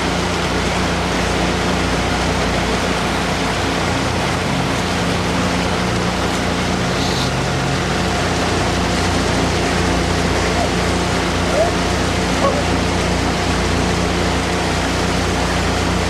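Motorboat engine running steadily under the microphone, with an even rush of wind and water.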